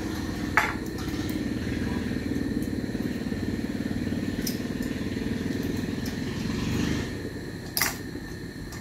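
A small engine, the kind of a motorcycle, running steadily and then fading away about seven seconds in. Two short sharp knocks, about half a second in and near the end.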